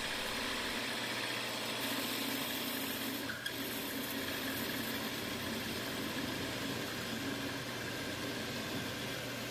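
Metal lathe running while a parting tool cuts into a spinning 1-inch precision-ground round bar, parting it off to length: a steady machine hum with cutting noise, dipping briefly a little over three seconds in.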